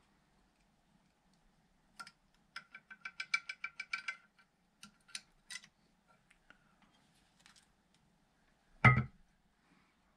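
Metal tools and parts clinking during hand work on an outboard's water pump. A quick run of ringing metallic clicks comes about two to four seconds in, then a few single clicks, then one loud thump near the end.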